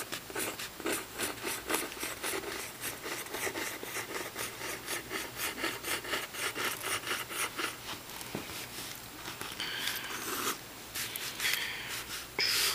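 Pencil scratching on paper in quick, short repeated strokes, about four or five a second, sketching water lines, with a few longer strokes near the end.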